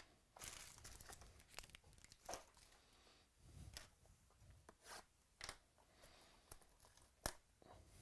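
Faint rustling and crinkling of trading cards and their plastic packaging being handled, in short scattered bursts, with one sharp click about seven seconds in.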